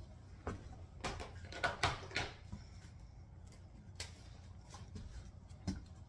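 Light knocks and clatter from handling a plastic pencil box of crayons and markers while it is put away and a spiral notebook is picked up. Most of the knocks come between one and two and a half seconds in, with single ones later.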